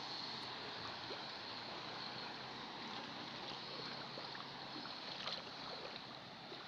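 Steady wash of water noise on a flooded street, with a car driving slowly through the floodwater, its tyres pushing and splashing water.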